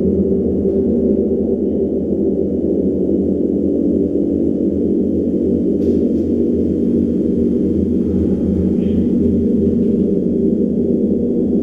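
Giant gong, 200 cm across, played with soft mallets: a continuous, steady drone of many deep, overlapping tones with no separate strokes standing out.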